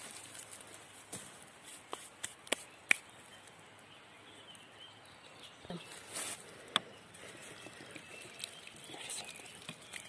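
Dry leaf litter and soil rustling and crackling under hands digging through it, with a few sharp clicks, a cluster about two to three seconds in and one more near seven seconds.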